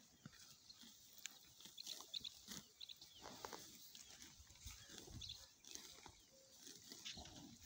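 Water buffalo grazing close by: faint, irregular sounds of grass being torn and chewed. A few short high chirps come about two seconds in.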